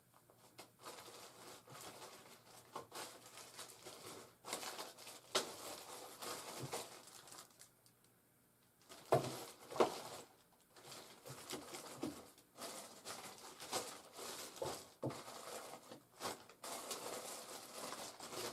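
Rummaging through stored parts by hand: irregular rustling and crinkling with small clicks and knocks. There is a brief pause about eight seconds in, followed by two sharper knocks.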